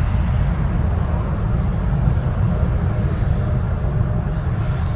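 Airbus A340's four jet engines rumbling steadily as it climbs away after takeoff.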